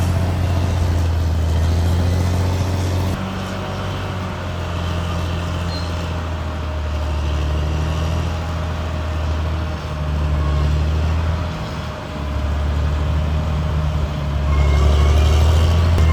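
CAT D6R XL bulldozer's diesel engine running under varying load: a deep, steady drone that eases off a little about three seconds in, dips briefly about twelve seconds in, and grows louder again near the end.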